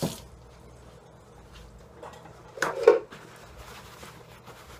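A kitchen tap shuts off with a click, then a brief clatter of kitchen things being handled about two and a half seconds in, the loudest sound here.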